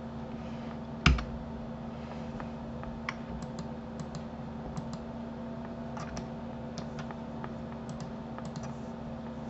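Scattered clicks of a computer keyboard and mouse as shortcuts are pressed and the interface is clicked, with one louder knock about a second in. A faint steady electrical hum runs underneath.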